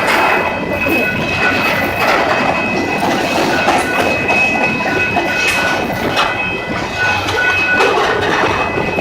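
A train rolling past at close range, its wheels clattering over the rails, with thin high-pitched squealing from wheels on the rail running on and off throughout.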